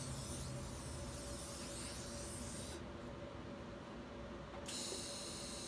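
Faint hiss of shielding gas flowing from a TIG torch after the arc has stopped. The hiss cuts out suddenly a little before halfway through.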